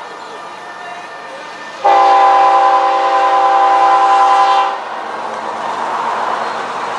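BNSF diesel locomotive's air horn sounding one long blast of about three seconds, a steady chord of several notes that starts about two seconds in and cuts off sharply. Around it, the rumble of the approaching locomotives grows louder as they pass.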